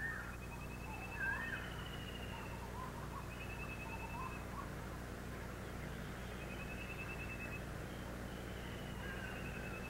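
Birds calling outdoors: short runs of quick high notes repeating every second or two, with a few curling warbled calls near the start and again near the end. A steady low hum runs underneath.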